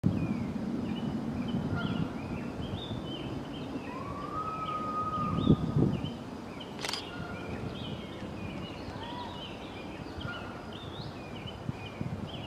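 Songbirds chirping and singing, a busy run of short high chirps with one longer whistled note a few seconds in. A low rumble under the first two seconds, a couple of low thumps about five and a half seconds in, and a single sharp click a second later.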